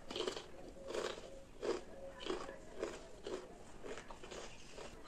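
A person chewing a mouthful of crisp potato chips and Kurkure snacks with chutney and mayonnaise: a quiet, crunchy chew about twice a second.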